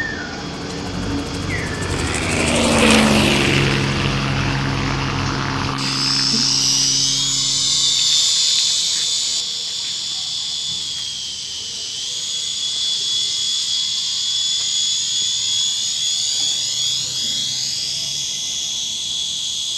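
Small remote-control coaxial toy helicopter running: its electric rotor motors give a steady high-pitched whine with wavering pitch. A louder whoosh swells and fades around three seconds in, and the sound changes abruptly to the thin high whine about six seconds in.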